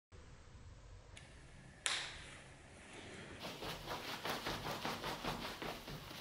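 A single sharp click about two seconds in. From about halfway there is a quick run of rustling and tapping, roughly four or five strokes a second, as a dagger's leather-covered scabbard is handled and hooked onto a trouser belt.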